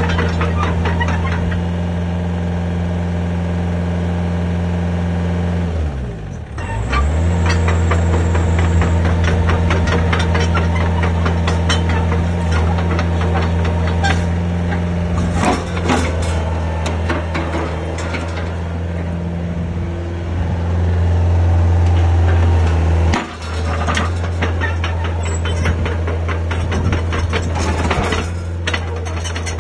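Hitachi Zaxis 50 mini excavator's diesel engine running steadily while its steel crawler tracks travel, with a stream of metallic clanks and clicks from the track links. The engine sound dips briefly about six seconds in.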